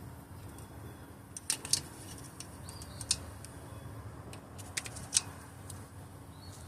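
Handling clatter: a handful of sharp clicks and clacks spread over several seconds, the loudest a little over a second in and again about five seconds in, over a faint steady hum.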